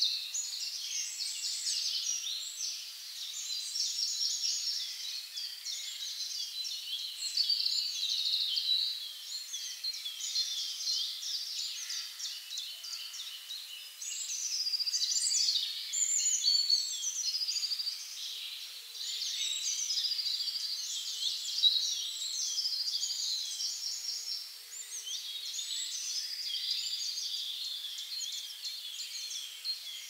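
Many songbirds singing at once in a dense, overlapping chorus of chirps, trills and whistled phrases, with no traffic or aircraft hum beneath it.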